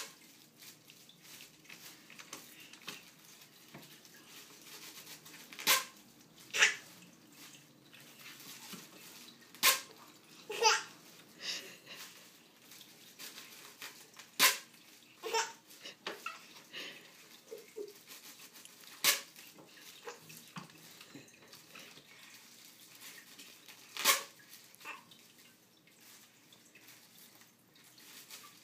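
Inflated plastic air-cushion packing being torn open, giving a sharp pop every few seconds, with a baby's laughter after some of the pops.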